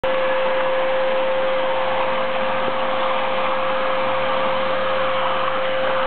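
Upright vacuum cleaner running steadily: a constant rushing noise with a steady motor whine.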